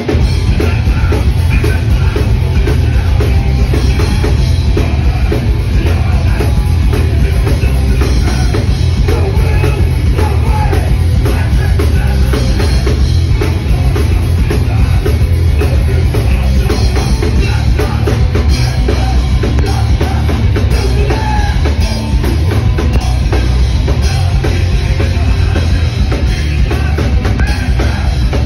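Hardcore punk band playing live at full volume: distorted guitars and bass over fast, pounding drums, with the singer's vocals on top. The full band comes in together right at the start.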